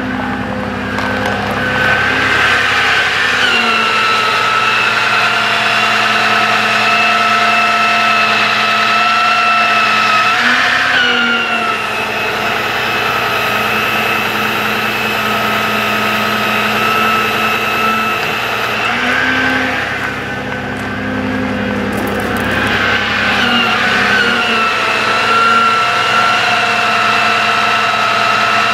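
Bucket truck's PTO-driven hydraulic system whining under load as the outriggers are lowered, over the truck's running engine. The whine holds a steady pitch for several seconds at a time, shifts as the levers are worked, dips about eleven seconds in and eases off for a few seconds about two-thirds through before rising again.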